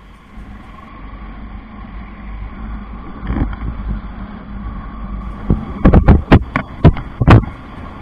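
Motorcycle riding, with engine and wind rumble building as it gathers speed. Near the end come a quick run of loud, sharp thumps.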